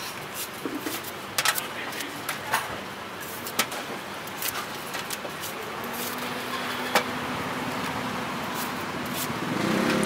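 Knife slicing crisp wax apples (rose apples), a scatter of sharp clicks, over steady street traffic noise. A vehicle engine hum comes in around the middle and grows louder near the end.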